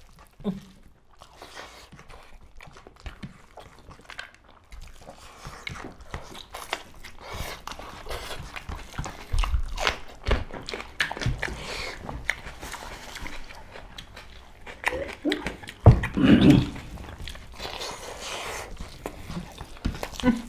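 Close-miked eating sounds of two people eating rice and mutton curry by hand: chewing, lip smacks and wet clicks. A short voiced sound comes from one of them about three-quarters of the way in.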